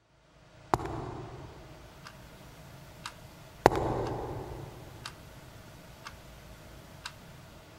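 A clock ticking about once a second, with two loud, echoing footfalls of high heels on a wooden floor, about a second in and again just before four seconds.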